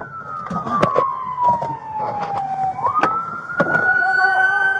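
Police car siren wailing: its pitch slides slowly down, then rises quickly about three seconds in and holds high. Several sharp knocks and clatter sound over it.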